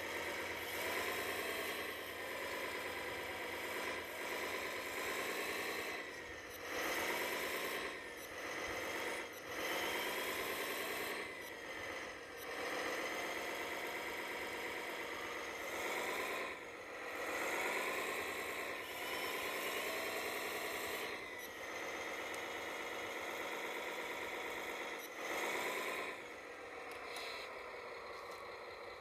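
A 1/14-scale radio-controlled CAT excavator at work: its motors whine in repeated spurts of a few seconds each, the pitch sagging and rising as the boom, arm and bucket move.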